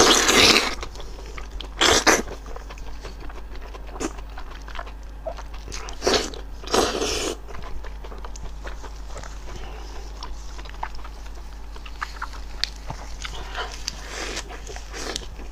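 Close-miked eating of sauce-coated sheep tripe: a few loud wet slurps and bites in the first seven seconds, then steady chewing with small wet clicks and smacks. Near the end the bite is wrapped in lettuce, which crunches.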